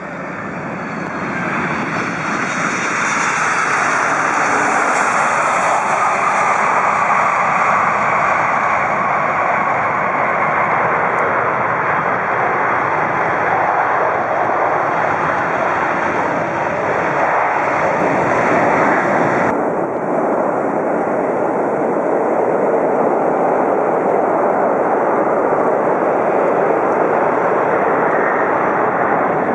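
Boeing 747 jet engines running loud and close on the runway, the noise building over the first few seconds as the jet comes by. About two-thirds of the way through the sound changes suddenly to another 747's engine noise.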